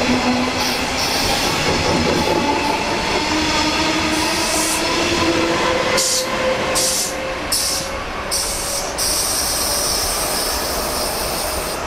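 A DB Regio double-deck push-pull train with a Class 146 electric locomotive pushing at the rear runs past close by: a steady rumble of wheels on rail with a faint electric whine that rises in pitch. It grows somewhat quieter in the last few seconds as it pulls away.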